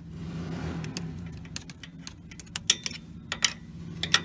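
Pliers, a screwdriver and a hose clamp clicking and scraping against metal as a vacuum hose is forced onto a tight turbo compressor-housing nipple. Several sharp clicks come in the second half, over a steady low hum.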